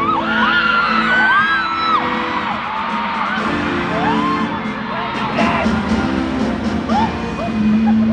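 A crowd of fans screaming and cheering over loud concert intro music, many high voices rising and falling at once.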